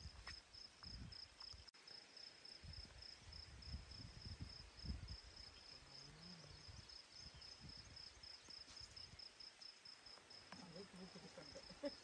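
Faint insect chirping in a steady pulsed rhythm, about three or four chirps a second at one high pitch, with low gusts of wind buffeting the microphone.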